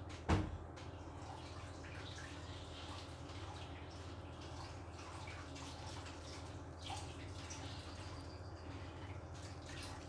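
A rabbit chewing cucumber and carrot sticks: faint crisp crunches and clicks over a steady low hum. A single sharp knock sounds just after the start.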